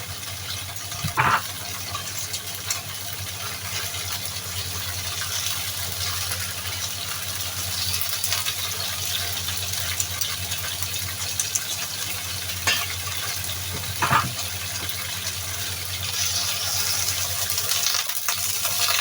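A steady rushing hiss over a low hum in a kitchen, with a few brief clatters about a second in and twice near the two-thirds mark.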